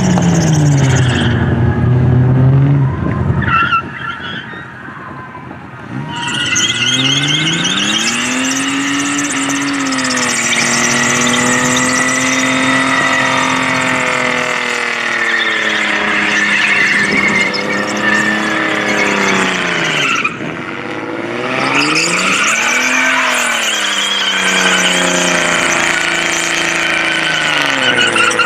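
Ford Falcon sedan doing a burnout: the engine is revved hard, its pitch rising and falling, while the spinning rear tyres screech. The revs drop away briefly about four seconds in and again about twenty seconds in, then climb back up.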